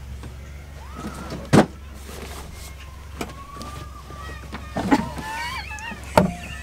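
Knocks and rattling from a van's passenger-seat base being pulled and pushed at by hand, its hidden compartment underneath sticking and refusing to open. One sharp knock about one and a half seconds in is the loudest, over a steady low hum.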